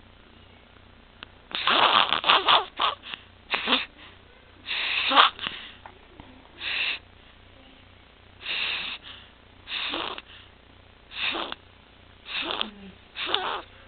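A six-week-old infant with laryngomalacia and tracheomalacia breathing noisily after a breathing pause. About a second and a half in, a cluster of gasps comes as breathing restarts. Harsh, high-pitched stridor breaths then follow roughly once a second, the sign of a floppy, partly obstructed airway.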